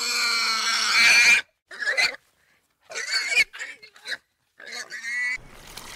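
An animal crying out repeatedly in pitched, drawn-out calls: one long cry of about a second and a half, then several shorter ones.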